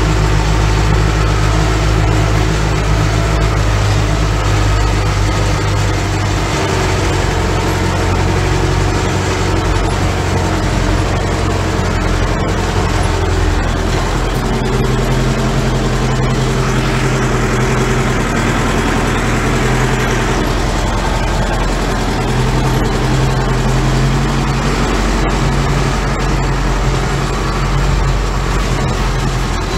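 Ursus tractor's diesel engine running steadily, heard from inside the cab while it pulls a loaded lime-spreading trailer. The engine note shifts about halfway through.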